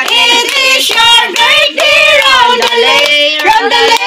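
Several women singing together, clapping their hands along with the song.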